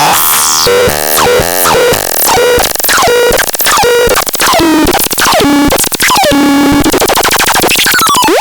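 Electronic noise synthesizer producing a harsh, chaotic stream of fast pitch sweeps and short stuttering bleeps that hop between a few pitches. It ends in a sharp upward sweep that cuts off abruptly.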